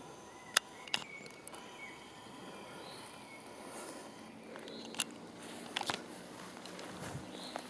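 Quiet woodland background with a few sharp clicks or cracks: two close together near the start and a small cluster about five to six seconds in.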